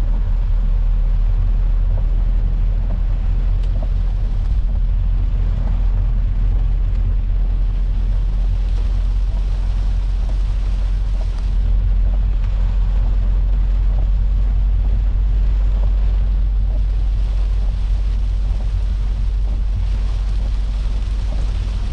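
Steady low rumble of a Peugeot 406 saloon driving on a wet road, heard from inside the cabin, with an even hiss of heavy rain on the car and its tyres on the water.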